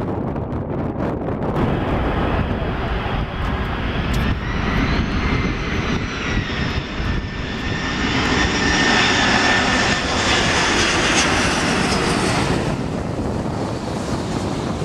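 Four-engine Airbus A340 jet airliner on low approach passing close overhead: a rushing engine noise with a high whine that swells and then cuts off abruptly near the end. Wind rumbles on the microphone throughout.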